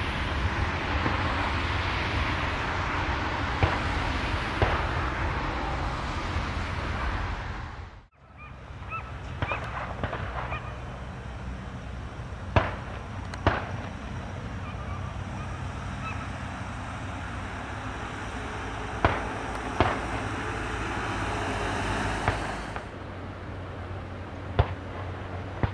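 Distant jet aircraft engine noise, a steady rush that cuts off suddenly about eight seconds in. A second distant aircraft's engine noise follows and fades away near the end. A few short bird calls and several sharp clicks sound over it.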